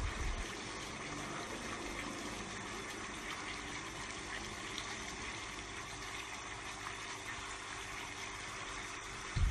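Steady hiss of background noise with faint, even hum tones underneath. There is a short low thump right at the start and another near the end.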